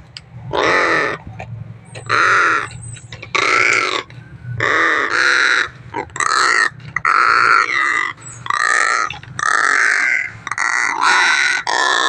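Crows giving a long series of harsh caws, about one a second, each call about half a second long.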